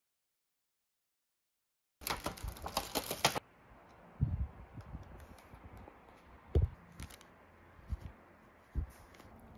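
Dead silence for two seconds, then a plastic bag crinkling in a quick run of crackles for about a second and a half. A few soft thumps follow as a takeaway lunch box and a plastic sauce pouch are handled.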